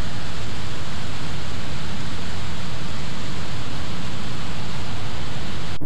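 Steady, loud rush of airstream noise on a camera mounted outside a fast-cruising ultralight aircraft, cutting off abruptly near the end.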